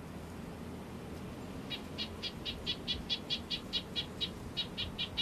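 A small bird calling: a fast, even series of short high notes, about five a second, starting a couple of seconds in, with a brief break near the end, over a steady low background rumble.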